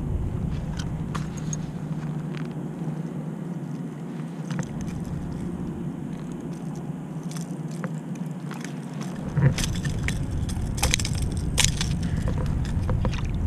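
Wind rumbling on the microphone, fading out for a few seconds at a time. Small metallic clicks and rattles come from pliers and a lure's treble hooks being worked out of a striped bass's mouth, thickest from about ten seconds in.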